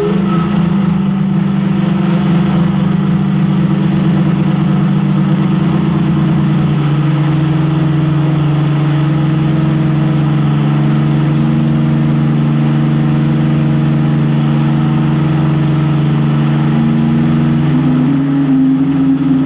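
Drum feedback: miked drums feeding back through the amplification, giving a loud sustained drone of several layered low tones. The tones hold steady with slow shifts, and an upper tone steps up in pitch near the end.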